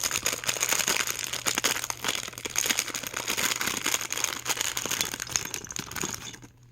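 A plastic packaging bag crinkling and rustling with many small clicks as small doll shoes are taken out of it; it dies down near the end.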